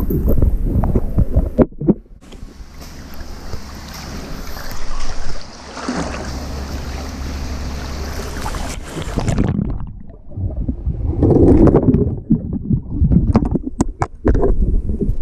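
Pool water splashing and sloshing right at the microphone as a person moves through it, with a steady hiss of moving water in the middle and irregular knocks and thumps near the end as plastic toy train track pieces are handled.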